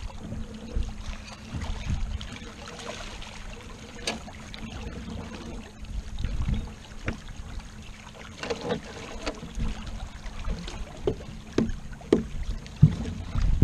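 Water rushing past the hull of a sailing yacht under way, with a low wind rumble on the microphone. A few sharp clicks and knocks come through, most of them in the second half.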